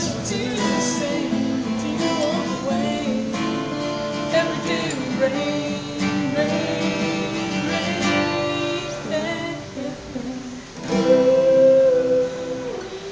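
A slow pop ballad with strummed acoustic guitar and a sung melody. Near the end a voice holds one long wavering note.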